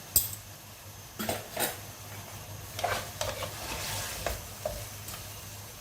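A spoon stirring chicken, ginger and garlic frying in oil in a karahi: several sharp knocks and scrapes of the spoon against the pan over a sizzle.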